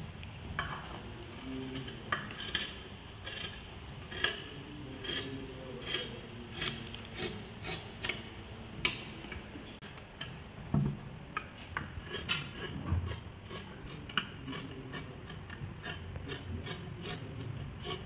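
Large tailor's shears cutting through thick white fabric: a run of crisp snips, roughly one or two a second, coming faster in the second half.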